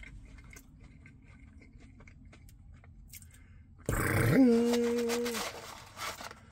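Faint wet mouth clicks from chewing french fries. About four seconds in comes a loud breathy exhale that turns into a man's steady hummed note, held for about a second.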